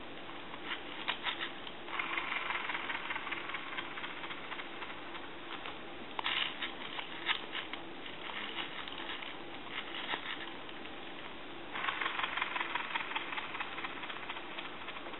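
The opened-up rotary dial of a Western Electric 202 telephone is wound and let run back several times, its mechanism whirring and ticking for a couple of seconds on each return, with small clicks in between. The tension spring that drives the return is still slack, which is what makes the dial run back slowly.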